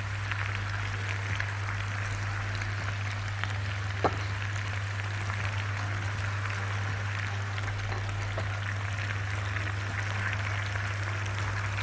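Penne and sausage sizzling in a hot pan as béchamel sauce is ladled over them: a steady crackling hiss, with a single sharp knock about four seconds in and a steady low hum underneath.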